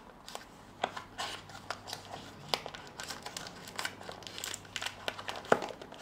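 Cardboard box flaps being pried open by hand and plastic packaging crinkling: an irregular run of small clicks and rustles, with a sharper snap about five and a half seconds in.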